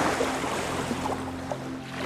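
Baltic Sea water lapping and splashing in small bursts, over a steady low hum of several tones that sets in at the start.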